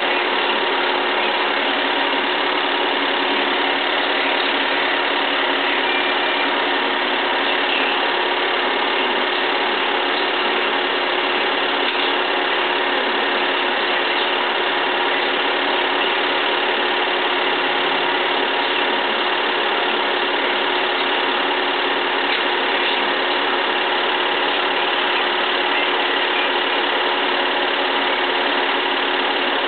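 Film projector running: a steady mechanical whir with a constant hum, unchanging throughout.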